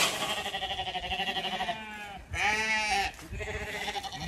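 Zwartbles lambs bleating, three bleats in turn, the first long and quavering. A sharp knock at the very start.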